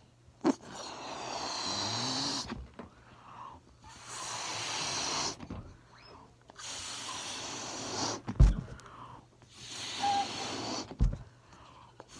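Balloon making a series of rushing, hissing air noises: four bursts each about a second and a half long with short pauses between, with a sharp click near the start and a couple of low thumps in the second half.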